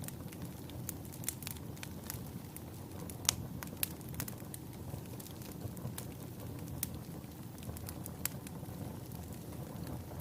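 Wood fire burning in a fireplace: a steady low rumble of flames with irregular sharp crackles and pops from the burning logs, one louder pop a little over three seconds in.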